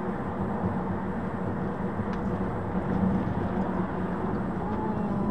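Car driving steadily along a road, heard from inside the cabin: a steady low engine drone over tyre and road noise.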